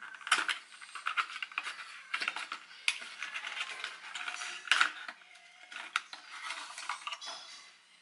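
A small paperboard product box being opened by hand: the tucked flap pried open and the thin cardboard crackling and clicking in irregular sharp snaps.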